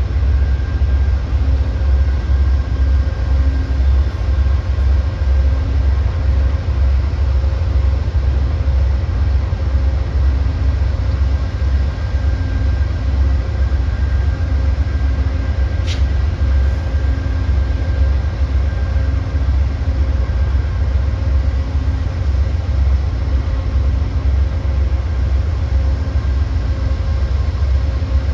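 A train running past, a loud, steady low rumble with a faint steady hum above it, and one sharp click about sixteen seconds in.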